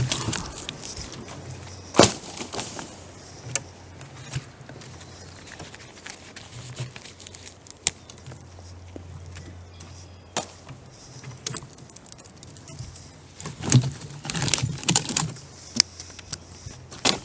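Storm-broken birch branches and logs being handled and thrown, knocking and clattering: a sharp knock about two seconds in, a few single knocks, and a quick run of them near the end. A faint steady low hum sits underneath through the first half.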